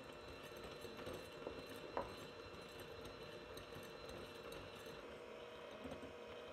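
Electric hand mixer running steadily, its wire beaters whipping egg whites as sugar is added for meringue, with a sharp click about two seconds in.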